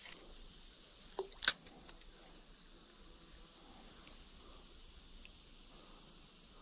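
Steady high-pitched chorus of insects, with a few sharp clicks about a second and a half in from the spinning reel being handled after the cast.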